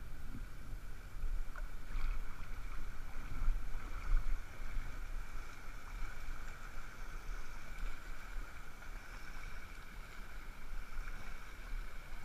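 Bay water sloshing and lapping close to the microphone over a low rumble, with louder moments about two and four seconds in. A faint steady high whine runs underneath.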